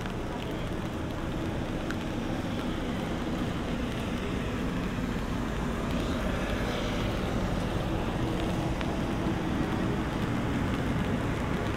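Steady low rumble of city street ambience, growing slightly louder toward the end.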